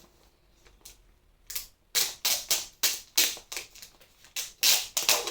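Small cardboard product box being worked open by hand: after a quiet start, a quick run of crisp scrapes and rustles, a few a second, as the flaps and packaging are pulled.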